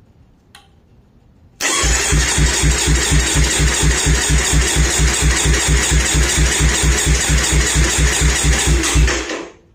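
Kawasaki Ninja 300 parallel-twin engine turned over by its electric starter with the spark plugs removed and the throttle held wide open, for a compression test on cylinder two, which reads about 190 psi. A steady starter whir with an even beat of about four compression pulses a second starts about a second and a half in and winds down near the end.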